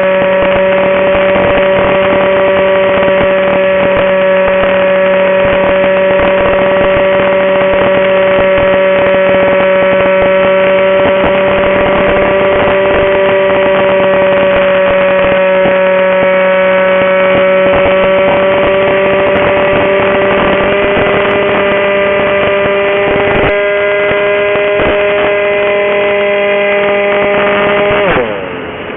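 Electric motor and propeller of an RC flying wing, heard from a camera on the plane, holding a steady high whine under rushing air. Near the end the pitch slides down and the sound drops as the throttle is cut back.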